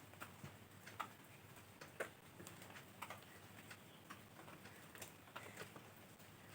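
Near silence: room tone with faint, regular ticks about once a second.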